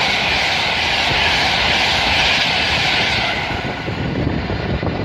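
A train passing at speed on the main line, a loud steady rushing noise that begins to fade about three and a half seconds in.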